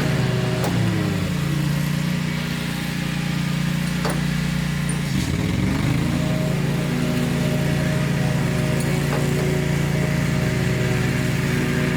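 A steady motor-like mechanical hum, its pitch dipping briefly about five seconds in, with a few faint clicks.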